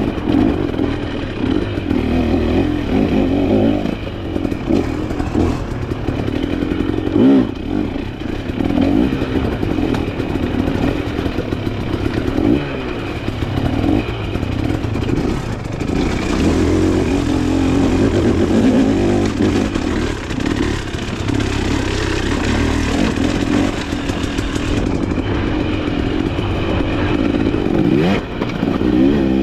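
Dirt bike engine being ridden hard over rough trail, its revs rising and falling constantly, with a clear rising rev near the end. Rattles and knocks from the bike over the rough ground run through it.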